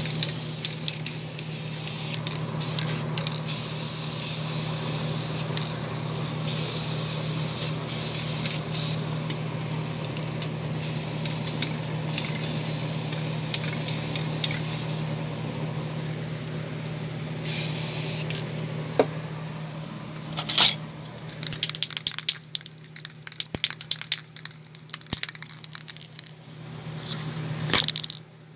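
Paint sprayer spraying paint: a steady hiss over a constant low buzzing hum. About 21 seconds in the hiss stops, and the hum runs on under scattered clicks and knocks of handling.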